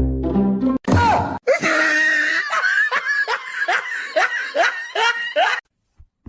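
Laughter in a rapid run of short bursts, about three a second, each falling in pitch, cutting off abruptly about a second before the end. A brief low tone comes just before it.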